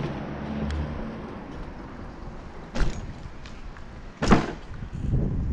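Bicycle riding along a street, a steady low rumble of wheels and wind, with two sharp clunks about a second and a half apart, the second the loudest.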